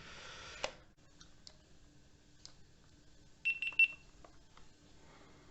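GoPro Hero 9 Black beeping three times in quick succession as it powers on. Before that, near the start, there is a short rustle of handling that ends in a click.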